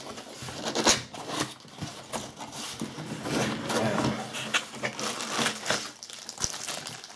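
Cardboard box being opened and unpacked by hand: flaps and a cardboard insert scraping and rustling, with a few sharp knocks, then a plastic bag crinkling near the end.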